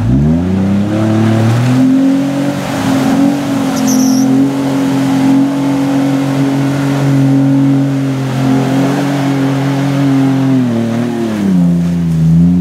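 Jeep Wrangler Unlimited's engine revving hard under load as it climbs out of a flooded mud pit: the revs rise steeply in the first second or two, hold high and steady, then ease off and drop about two seconds before the end.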